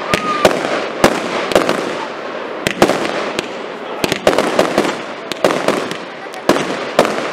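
Fireworks display: many sharp bangs of bursting shells at irregular intervals, several coming in quick clusters, over a steady crackling hiss.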